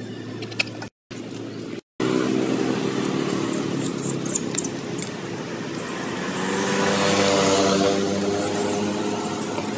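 A motor vehicle's engine passing by, growing louder to a peak about three-quarters of the way through and then fading, with a few brief high-pitched squeaks over it.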